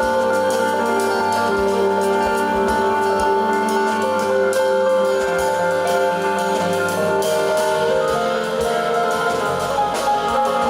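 Jazz piano trio playing: piano with bass and drums, notes sustaining over regular cymbal and drum strokes.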